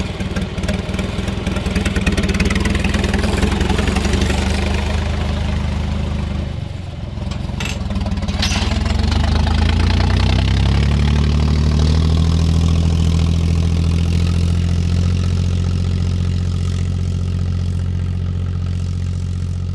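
John Deere 1030 tractor's three-cylinder diesel engine running through a stainless-steel exhaust pipe, the note dipping briefly about six to seven seconds in, then picking up and holding steady. Two short knocks sound about a second apart midway through.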